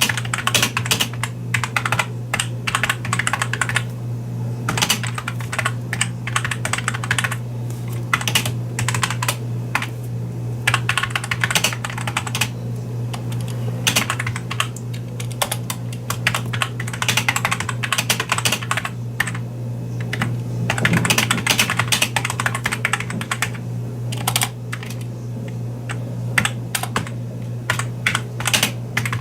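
Apple Pro Keyboard (M7803) being typed on quickly: dense runs of key clicks broken by short pauses, over a steady low hum.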